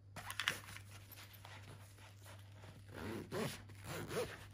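Zipper on a backpack's mesh lid pocket being worked, with fabric rustling and a cable being handled; the longest zipping and rustling comes about three seconds in.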